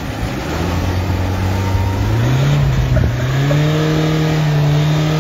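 Mahindra Thar's engine revving under load as it pulls through a soft, wet paddy field. The engine note holds low, then climbs about two seconds in and stays at the higher pitch.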